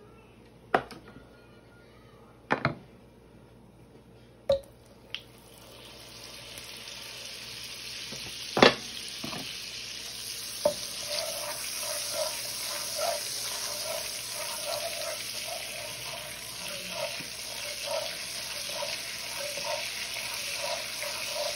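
Butter sizzling in a hot nonstick skillet, the sizzle starting about five seconds in and growing steadily louder as the butter melts and foams. A few sharp knocks come before it, and later a wooden spatula stirs and scrapes the butter across the pan about twice a second.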